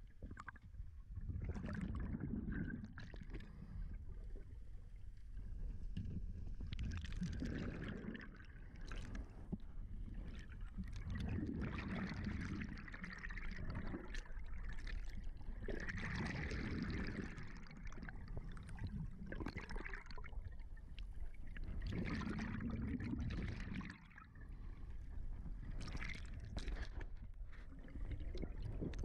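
Scuba diver breathing through a regulator underwater: about six breaths, one every four to five seconds, each a gurgling rush of exhaled bubbles with a hiss, over a steady low underwater rumble.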